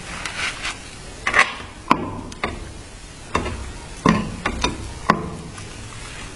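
About eight sharp knocks and clicks at uneven intervals, several ringing briefly, from hard objects being tapped or set down during work on the knife.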